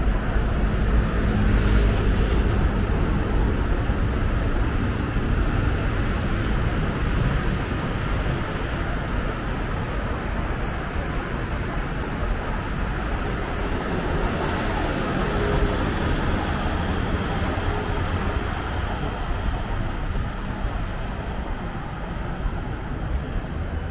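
Steady city street traffic: cars and other vehicles passing, with a constant low rumble. It swells slightly a couple of times as vehicles go by nearer.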